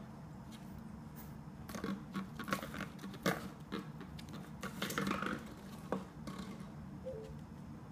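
A French bulldog puppy pushing and mouthing a plastic water bottle on a hardwood floor: a string of crinkles, knocks and clicks from the bottle and the puppy's claws, mostly between about two and six seconds in.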